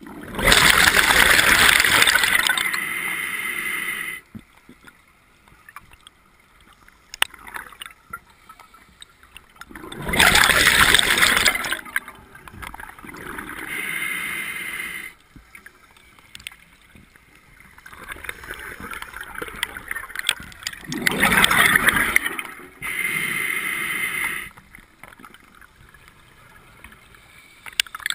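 Scuba regulator breathing heard through an underwater camera housing: three breaths about ten seconds apart, each a loud rush of bubbles and air followed by a softer rush, with quiet between.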